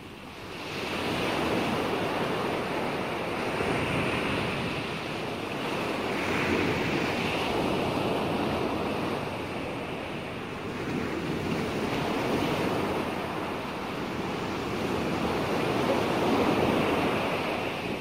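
Ocean surf: waves washing in, the rush swelling and ebbing every few seconds.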